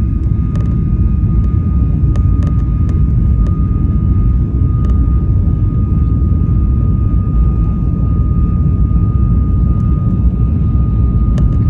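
Boeing 737 cabin noise: a loud, steady low rumble of jet engines and airflow, with a steady thin whine above it and a few faint clicks.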